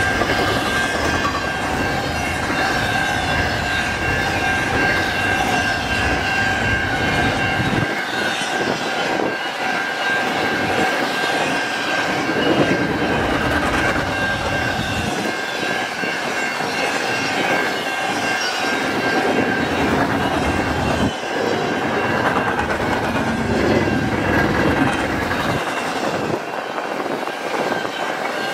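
Freight cars of a CN freight train rolling past at a level crossing: wheels clattering over the rails, with the low rumble easing briefly between cars several times. A steady high-pitched tone rings over it throughout.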